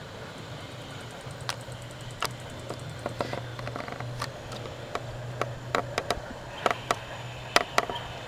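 Electric trolley car rolling along the track with a steady low hum, its wheels giving irregular sharp clicks over the rail joints. The clicks come more often and louder in the second half, some in quick pairs.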